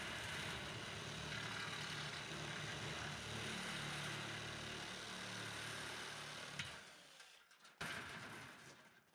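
A steady mechanical running noise with a low hum, like a small engine or motor, that stops abruptly about seven seconds in, followed by a short sharp burst of noise.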